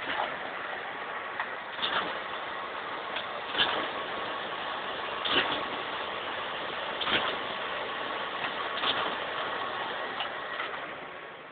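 HP Indigo 3050 digital printing press running: a steady mechanical hum with a sharp clack repeating about every second and three-quarters.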